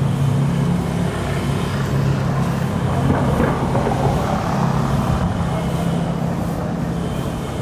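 Street traffic: motor vehicle engines running with a steady low hum over the noise of passing vehicles.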